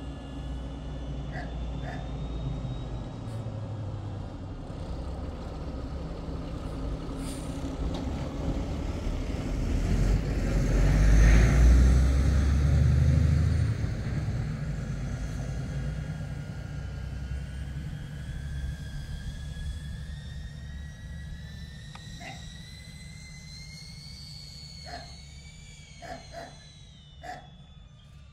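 Quadcopter drone propellers whining over a heavy rumble of wind on the microphone. The rumble swells loudest about halfway through, and near the end the whine climbs steadily in pitch as the drone speeds up.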